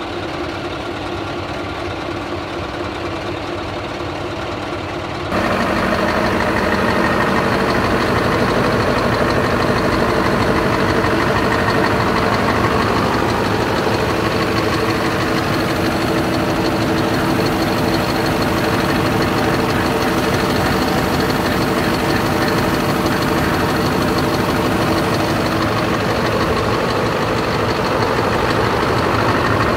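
Scania R tipper truck's diesel engine idling steadily. About five seconds in it becomes louder and brighter, heard close up at the open engine compartment.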